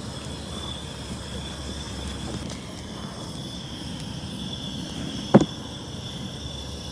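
Steady low outdoor rumble with a thin, steady high-pitched tone above it. A single sharp knock comes about five seconds in.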